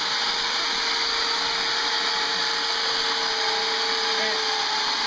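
Chainsaw running steadily with a constant whine as it cuts into the base of a Christmas tree's trunk; the whine sags slightly about four seconds in.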